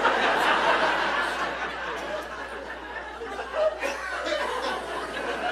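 Audience laughing at a joke, loudest in the first second and slowly dying down into scattered chuckles.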